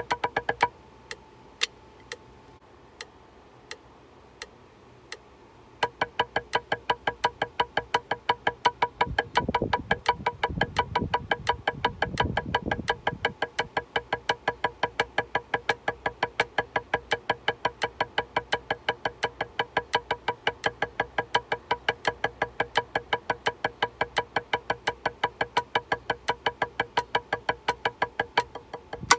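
A few scattered drumstick taps on a practice pad, then about six seconds in an electronic metronome starts a steady, evenly spaced beeping click, with sticks striking the pad in time with it.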